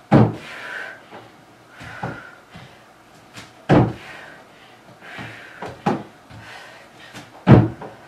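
Feet landing on a wooden plyo box during box jumps: three heavy thumps about four seconds apart, with lighter thuds of stepping back down to the floor between them.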